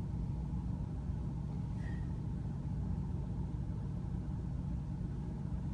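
Steady low rumble of an automatic car wash's machinery, muffled inside the car's cabin, with the idling car engine beneath it.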